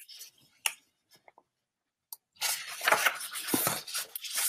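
Pages of a picture book being turned and handled: a rustle of paper that starts about halfway in, after a faint click or two.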